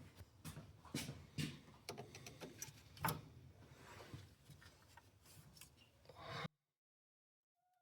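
Irregular small metal clicks and scraping of steel mechanics wire being worked through clutch bolt heads and twisted with pliers, with one sharper click about three seconds in. The sound cuts off abruptly about six and a half seconds in.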